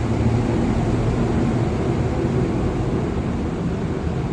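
Passenger lift running: a steady mechanical hum with a low drone under a wash of machinery noise.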